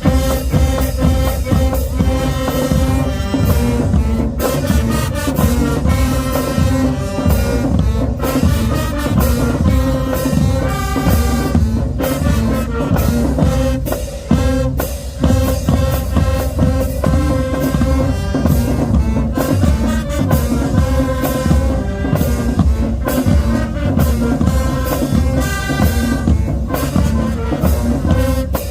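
A marching band playing loudly: brass horns carrying a melody over a driving drum-line beat.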